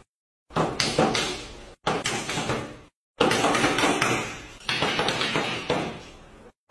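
A run of sudden heavy impacts, each fading away over about a second, with abrupt silent gaps between the first few.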